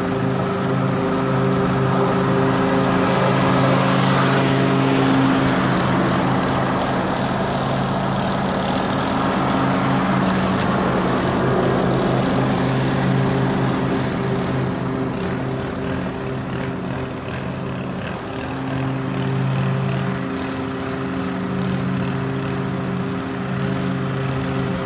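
Gasoline walk-behind lawn mower engine running steadily under load while mowing grass, with a string trimmer's small engine running alongside.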